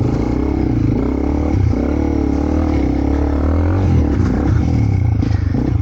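Honda CRF300L's single-cylinder four-stroke engine running under throttle in mud, its revs rising and falling, dipping briefly twice.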